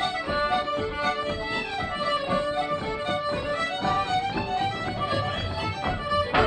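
Irish traditional ensemble playing a lively tune, led by accordion and fiddle. A sharp tap comes right at the end.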